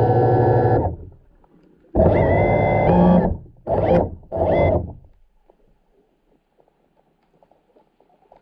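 Music: distorted electric guitar chords, each held and then cut off sharply. A long one ends about a second in, another runs from about two to three seconds, and two short ones fall just after it. After that only a faint crackle is left.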